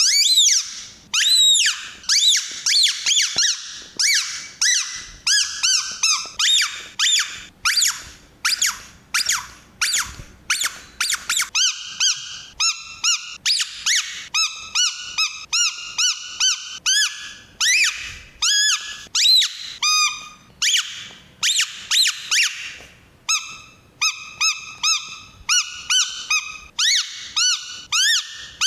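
Mickey Mouse squeeze toy squeaking over and over, about one to two short high squeaks a second, each rising and falling in pitch.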